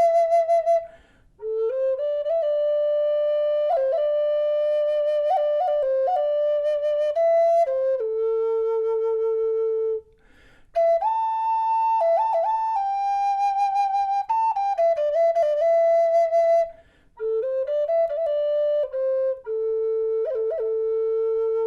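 Spanish cedar Native American flute in A minor playing a slow melody: held notes with quick grace-note flicks and a slight waver, in phrases broken by short breath pauses, several of them settling on the flute's low A.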